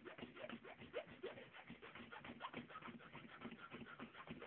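Hand file rasping on a steel key blank in quick, short, faint strokes, thinning one side of the blank to a steep knife edge.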